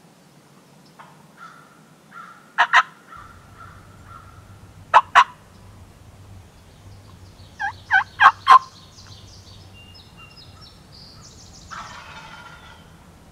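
Loud, close turkey yelps made on a diaphragm mouth call, in short runs of two, two, then four notes. Near the end a fainter, longer rattling gobble answers, over faint songbirds.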